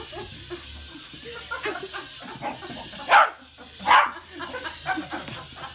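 A pet dog barking twice, about three and four seconds in, each bark short and loud.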